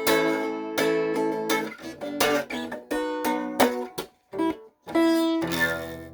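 Guitar playing a run of strummed and picked chords, with a few short breaks, ending on a final chord that rings out and fades near the end.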